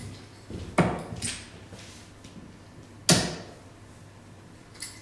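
Two steel-tip darts thudding into a Winmau Blade 6 sisal bristle dartboard, two sharp strikes a little over two seconds apart.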